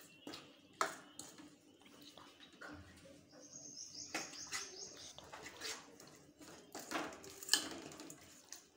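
Metal spoon stirring and scraping a thick green field-bean curry in a steel pan, with scattered soft clinks of the spoon against the pan. A faint thin high whistle runs for about two seconds a few seconds in.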